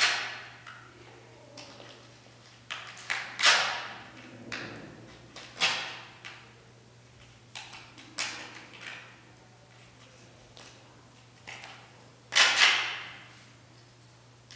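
A hand tool scratching across a large sheet of paper in about a dozen short, irregular strokes, the loudest at the start and near the end, over a faint steady hum.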